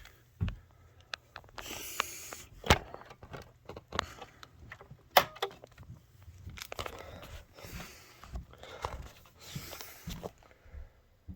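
Irregular clicks, knocks and rustling of objects being handled, with two sharper clicks, about 3 and 5 seconds in, the loudest, over a faint steady low hum.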